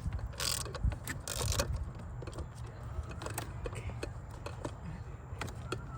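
Metal hand tools and parts clinking and scraping while bolts are worked loose in a car's engine bay: many small scattered clicks, with two short scraping sounds in the first two seconds.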